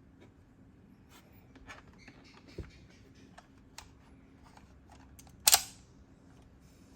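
Light clicks and taps of small hard objects being handled, with one much louder sharp click about five and a half seconds in.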